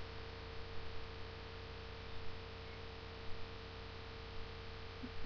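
Low steady electrical hum with a thin tone above it and a hiss of recording noise, with a few faint brief sounds now and then.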